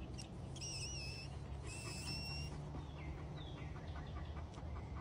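Two clear whistled notes, the first wavering and the second held nearly steady, then a short falling whistle about three seconds in, over a low steady hum.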